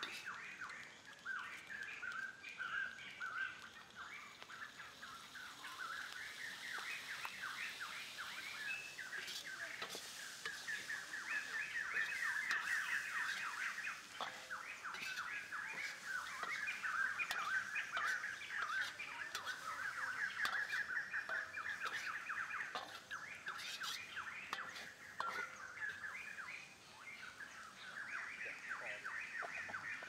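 A continuous outdoor chorus of rapid, repeated chirping calls from birds or insects, louder through the middle. It is broken by occasional sharp clicks and scrapes from a metal spatula stirring in a steel wok.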